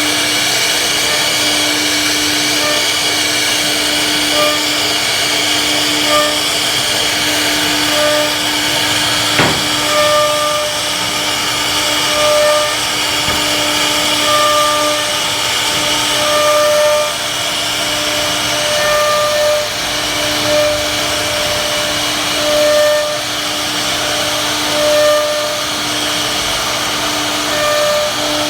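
CNC router cutting a 2D design in wood: the spindle runs with a steady hiss and a constant hum, broken by short higher tones every second or two as the axis motors move the head. A single sharp click about nine seconds in.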